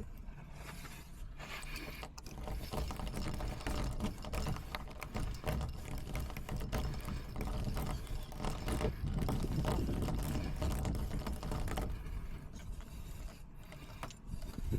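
Lock being picked: a rapid run of small metallic clicks and scrapes as a pick and tension tool work the pins, over a low rumble.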